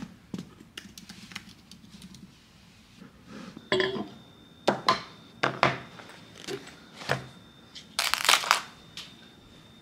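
Household handling sounds: a few soft keyboard clicks, then a run of sharp knocks and clacks as items such as a tumbler are handled on a stone countertop, with a louder rustle about eight seconds in as a fabric zip pouch is handled.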